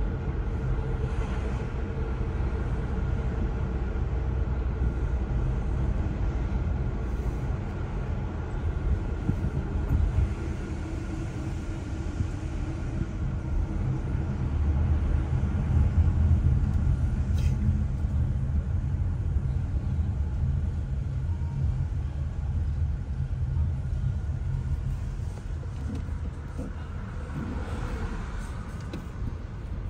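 Steady low rumble of a car driving, engine and tyre noise heard from inside the cabin, a little louder about halfway through.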